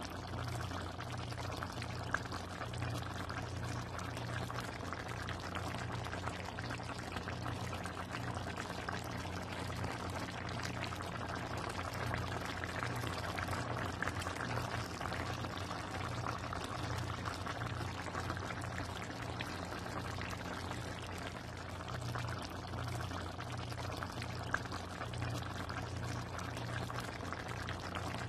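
Ginataang chicken, chicken in coconut milk, bubbling steadily as it simmers in a pan, with a steady low hum underneath.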